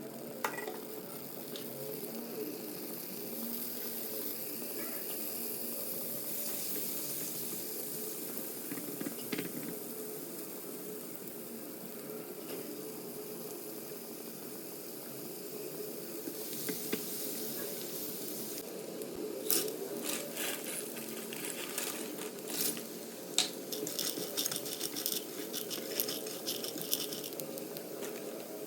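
Cooking sounds: a steady hiss like sizzling or running water, with a run of sharp clinks and taps of utensils on pots and dishes in the second half.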